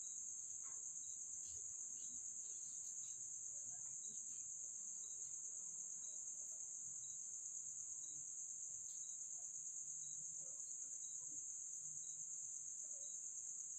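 Steady, high-pitched insect chorus, a continuous trilling drone of crickets.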